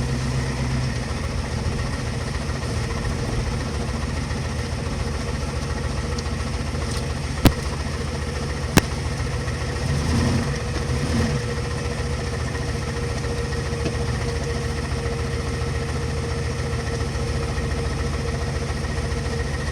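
Yard wrecker's engine idling with a knock, with two sharp louder knocks about seven and a half and nine seconds in. The louder knock is new, which the owner takes to mean something is trying to fall off.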